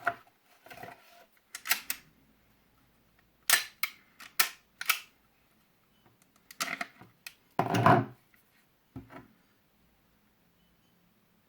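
Umarex Glock Gen 5 replica pistol being handled: an irregular series of sharp metallic clacks and rattles in small clusters, the heaviest about eight seconds in.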